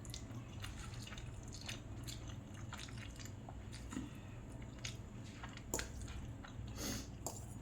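A person quietly chewing a mouthful of thick spicy instant ramen noodles: scattered small wet mouth clicks and smacks over a low steady hum.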